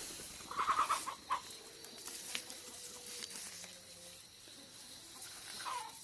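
Chicken clucking in short bursts, about half a second in and again near the end, over light rustling.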